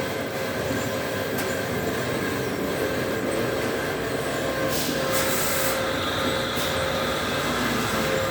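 Extrusion machine running with a steady mechanical drone and hum. A little before five seconds in, a hiss lasting about a second rises over it.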